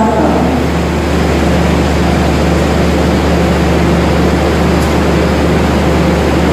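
Diesel train engine running steadily: a constant low drone with an even rushing noise above it.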